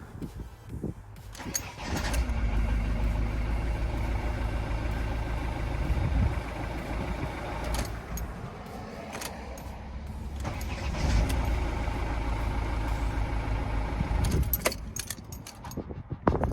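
Mk7 Ford Transit diesel engine started on a newly fitted starter motor and running, the sound swelling twice, about two seconds in and again about ten seconds in. A few sharp clicks come near the end.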